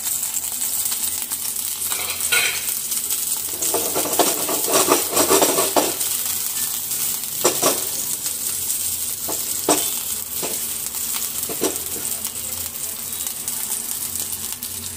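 Green chillies sizzling in hot oil in a nonstick frying pan, a steady hiss. A utensil stirs and scrapes in the pan for a couple of seconds about four seconds in, and knocks against it a few times.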